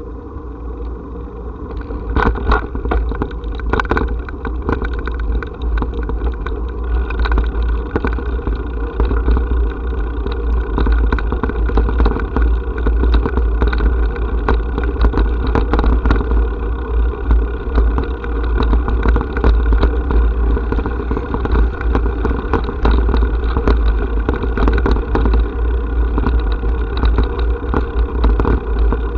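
Rumble and rattle of a camera riding on a moving vehicle: a steady low rumble, joined from about two seconds in by many quick rattling clicks as it rolls over brick paving.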